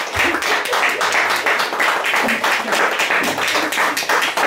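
Audience applauding, a dense, steady run of hand claps.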